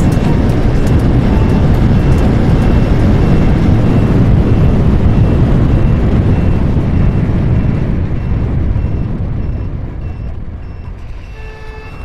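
Wind rush and engine noise of a Super Power Cheetah 110cc motorcycle riding at speed, easing off over the last few seconds as it slows. A turn-signal buzzer beeps faintly about twice a second, and a short horn sounds near the end.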